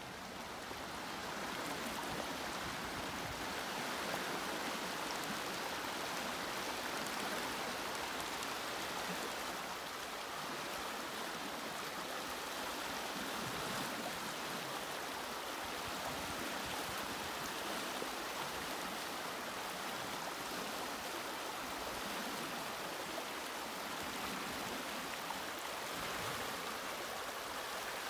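River water rushing over shallow gravel riffles: a steady, even rushing noise that fades in over the first couple of seconds.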